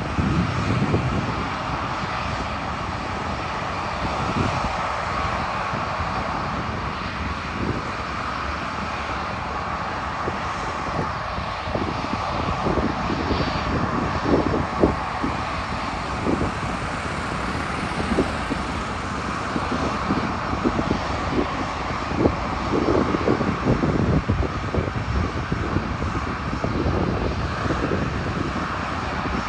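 Airbus A320-214's CFM56 jet engines running steadily, a constant whine-and-rush with no spool-up, while wind gusts buffet the microphone with irregular low rumbles.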